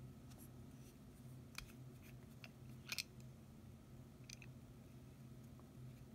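A handful of small, sharp clicks and ticks as a fountain pen is handled, the loudest a quick double click about three seconds in, over a faint steady low hum.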